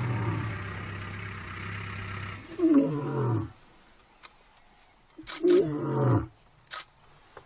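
Male African lion roaring to call another lion: two loud calls about two and a half seconds apart, each about a second long and falling in pitch.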